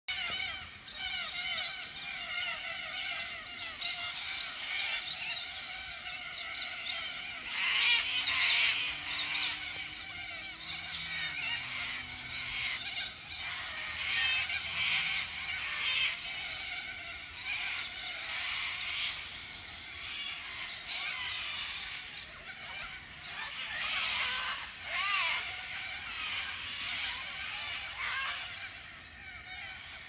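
Dense chorus of many birds chirping and squawking over one another, growing louder at times, typical of the outback evening gathering at dusk. A faint low hum shifts in pitch in the first half.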